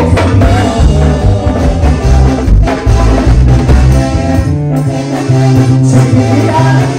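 Loud Latin music played by a band, with a steady bass line, melodic lines and regular percussion hits.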